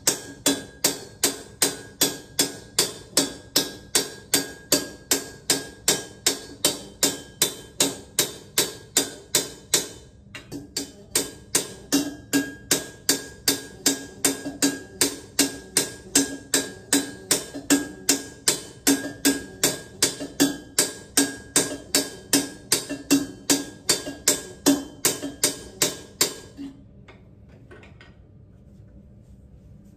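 Small metalworking hammer striking a copper vase held on an iron stake, a little over two blows a second, each with a ringing metallic tone; this is hand-raising a vase from a single copper sheet. The hammering breaks briefly about ten seconds in and stops a few seconds before the end, followed by a couple of light taps.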